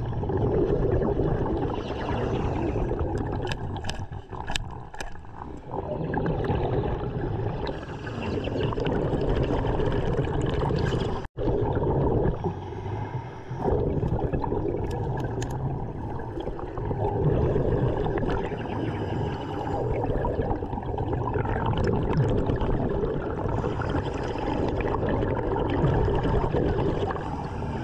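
Underwater gurgling and rushing of a diver's breathing air and bubbles, swelling and fading every few seconds, with a few sharp clicks about four seconds in.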